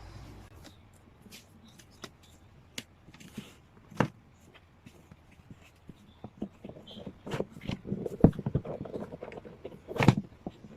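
Album packaging being handled during unboxing: scattered taps and clicks, then a busier run of rustling and knocks from about seven seconds in, with a sharp knock near the end.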